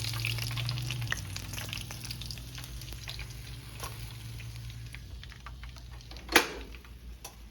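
Honey-coated, breaded squirrel pieces frying in hot grease in a frying pan, a steady sizzle full of small crackling pops that eases slightly over time. A single sharp click comes about six seconds in.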